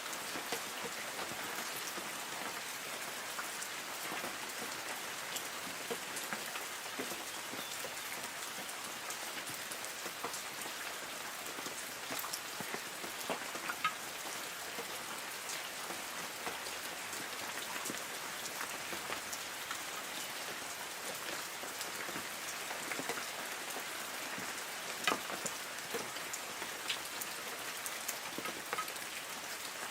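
Light rain falling on forest trees: a steady patter with many separate drops striking leaves, and a few louder single drops here and there.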